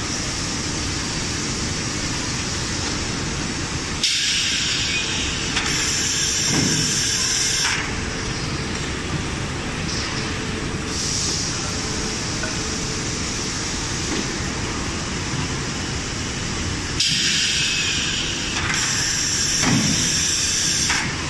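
Steady machinery din in a plywood mill, with two loud hissing bursts of a few seconds each, one in the first half and one near the end.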